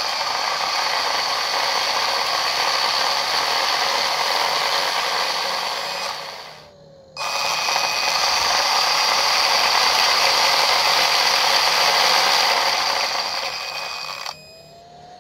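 Electric drive motors and metal gearboxes of a 1/16 scale full-metal Mato RC Tiger tank running fast with a loud, steady mechanical whine, in two runs of about seven seconds each, with a brief spin-down and restart about six and a half seconds in. It is a before-and-after comparison of the new, tightly meshed gears without and with lubricant.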